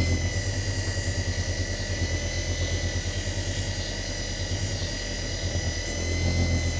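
Desktop leather edge burnishing machine running: its motor hums low with a fast, even flutter under a steady high whine.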